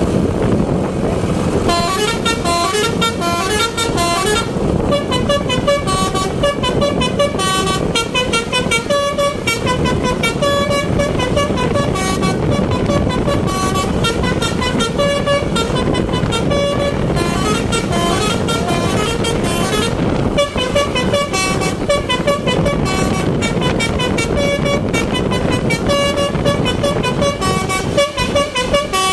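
Bus's Basuri multi-tone telolet air horn playing a quick tune of short, stepping notes, on and on, over the bus's engine and road noise.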